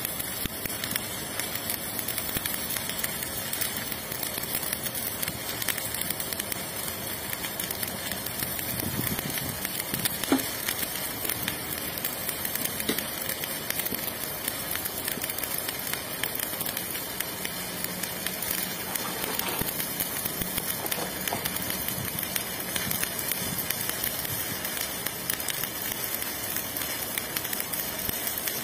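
Electric arc welding on a steel pipe joint: the arc runs steadily and unbroken, with one sharp tick about ten seconds in.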